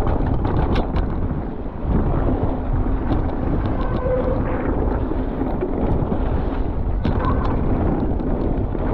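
Mountain bike descending a wet, rough trail, heard through a bike-mounted camera: a steady rumble of wind on the microphone and tyres on the dirt, with frequent sharp clicks and knocks from the bike rattling over bumps.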